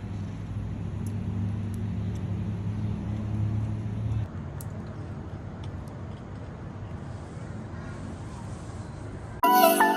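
A motor vehicle's engine runs with a steady low hum and cuts off suddenly about four seconds in, leaving quieter outdoor background noise. Music starts just before the end.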